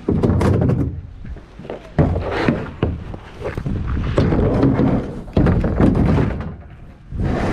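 Hollow plastic sit-on-top kayak being lifted and pushed onto a truck's tray: several dull thunks as the hull knocks against the tray, with rubbing and scraping between them.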